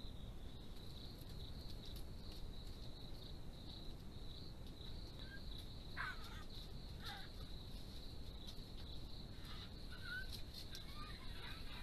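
Steady high night-insect trilling. From about halfway in, a few short, falling animal calls cut in over it.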